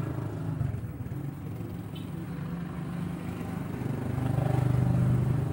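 An engine running steadily with a low hum, growing louder about four seconds in.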